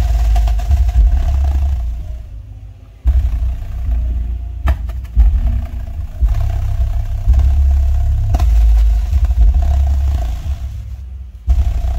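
Heavy, pulsing bass from a speaker driven by a ZK-502L class D amplifier board, with a loose rattle from the tissue paper laid over the speaker opening. The bass drops out briefly about three seconds in and again near the end.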